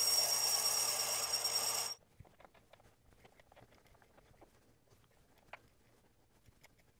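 Metal lathe running with a steady high whine and low hum while a twist drill in the tailstock bores into a spinning brass workpiece; the running noise stops abruptly about two seconds in. Faint metallic clicks and ticks follow as a tap in the tailstock chuck is worked into the drilled hole by hand.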